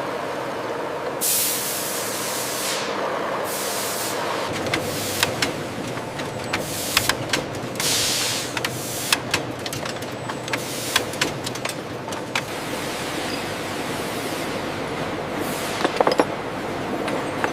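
Machine-shop ambience: a steady machinery hum, broken by a few short bursts of hissing air and many sharp clicks and taps, most of them in the middle and a cluster near the end.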